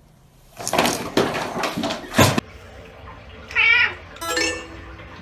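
A cat vocalising: a harsh, noisy cry lasting nearly two seconds that cuts off abruptly, then a short wavering meow about three and a half seconds in, followed by another short call.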